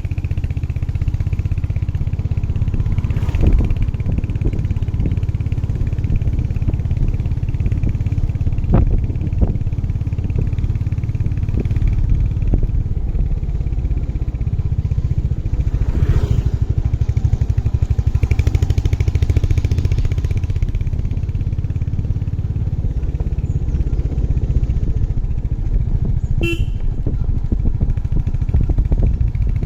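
Royal Enfield 350 single-cylinder motorcycle engine running steadily while riding, with wind and road noise. A brief sharp tonal sound cuts in near the end.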